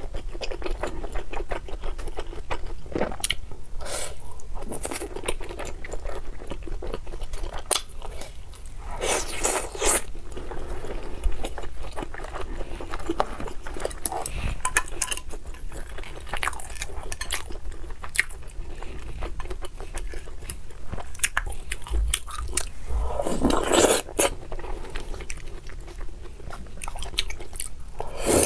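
Close-miked eating of oden (fish cake, daikon and tofu simmered in broth): chewing and biting with wet mouth sounds and many small clicks, and two louder noisy moments about nine and twenty-three seconds in.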